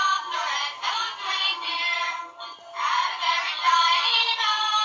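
High-pitched, synthetic-sounding singing with music, in two phrases with a short break about two and a half seconds in.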